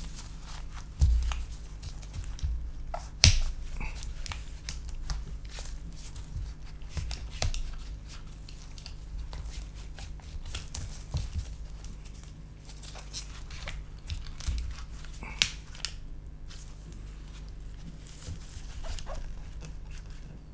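Scattered clicks, taps and scraping of hands and tools working a glued battery cell loose from a MacBook Pro's aluminium case, with a sharp knock about a second in and a louder one a little after three seconds, over a steady low hum.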